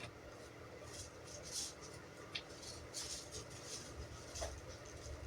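Faint, scattered rustling and scratching handling noises over a low steady hum.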